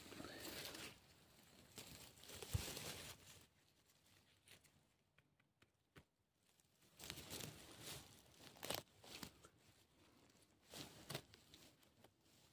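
Faint, intermittent rustling and crackling of moss, leaves and low forest plants as a hand parts the undergrowth, in short scattered bursts with a few sharp clicks.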